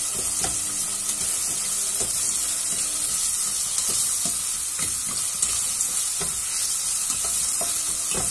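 Onions and shrimp sizzling in oil in a stainless steel saucepan, stirred with a spatula: a steady sizzle with scattered scrapes and taps of the spatula against the pan.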